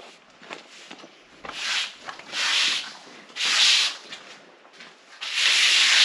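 A long-handled bristle broom sweeping a dusty floor in separate scraping strokes, about one a second, the last stroke the longest, near the end.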